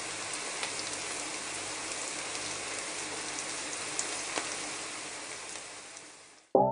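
Pot of curried goat simmering in thick gravy: a steady sizzling hiss scattered with small pops and crackles, fading out near the end.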